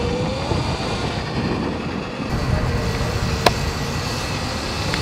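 72-volt Sur-Ron electric dirt bike riding, its motor whine rising briefly at the start over a low rumble; one sharp click about three and a half seconds in.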